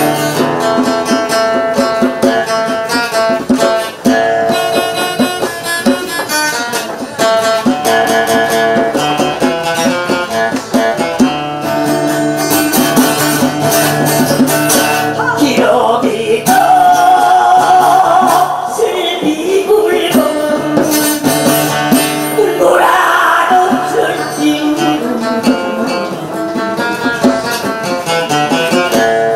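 Acoustic guitar playing together with a hand-drummed djembe, with a wavering, voice-like melody joining in around the middle.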